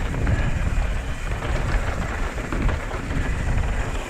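Mountain bike rolling fast downhill on a dirt trail: tyres crunching over the ground and the bike rattling, under a low rumble of wind on the microphone.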